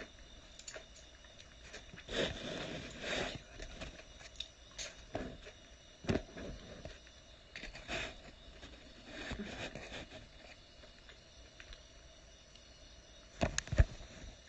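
Eating sounds from a bowl of Korean boiled chicken soup (baeksuk): chewing and handling of the food, with a metal utensil clicking against the bowl now and then. The sharpest clicks come near the end.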